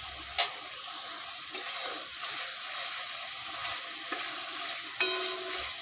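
Prawns sizzling in a bubbling spiced masala in a kadai as a metal spatula stirs them, with two sharp clinks of the spatula against the pan, about half a second in and near the end.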